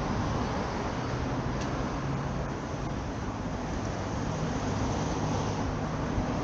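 Steady city street background: a continuous traffic rumble with a low engine hum.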